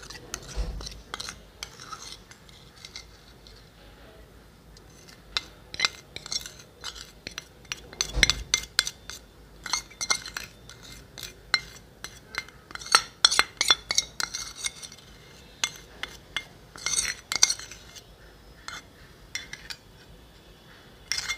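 Metal spoon scraping and clinking against a stainless steel bowl and plate while thick paste is scooped and spread, recorded close up. Irregular clicks and short scrapes, busiest in the middle, with a couple of dull knocks.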